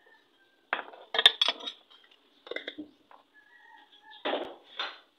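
Metal spoon clinking and scraping against a bowl of champorado as sugar is stirred in: a series of sharp clinks in irregular groups, the loudest a little over a second in.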